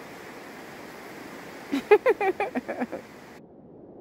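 Steady rushing noise of a river. About two seconds in comes a quick run of about eight loud, pitched, voice-like sounds. Near the end the rush changes abruptly to a duller, lower one.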